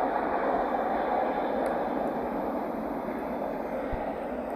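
Boeing 747-8I's four GEnx jet engines running, a steady rushing roar without distinct tones that eases slightly.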